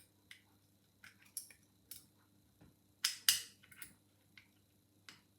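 Light metallic clicks and scrapes at irregular intervals from a piano-wire pick lifting the levers of an old Chubb five-lever mortice sash lock held under a tension tool. The loudest cluster of clicks comes a little past the middle.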